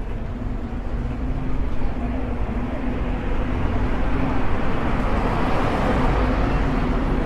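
Riding noise from an electric scooter moving along a city street: a rushing wind and rolling noise over a steady low hum, mixed with passing traffic. The noise grows louder from about four seconds in as the scooter picks up speed.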